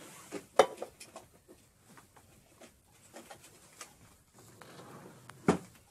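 Knocks, clicks and rustling from rummaging through the drawer of a wooden bedside table. There is a sharp knock about half a second in and another near the end, with small handling clicks in between.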